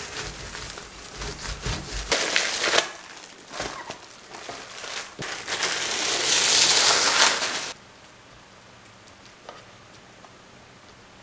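Wooden rolling pin rolling chocolate pastry dough between sheets of plastic wrap, then the cling film crackling loudly as it is peeled off the dough, the loudest sound, which stops suddenly about two-thirds of the way through. After that only faint, soft handling of the dough.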